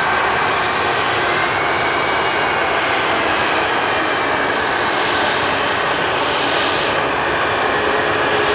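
Boeing 737 MAX 10's CFM LEAP-1B turbofan engines running at low power as the jet taxis. Steady jet noise with a few thin whining tones, no change in level.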